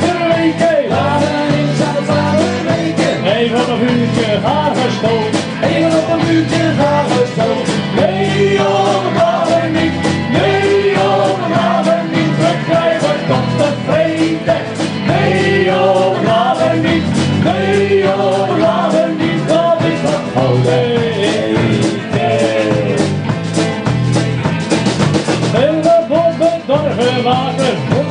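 Live band music: a Dutch-language song sung over guitar, bass, keyboards and drums with a steady beat.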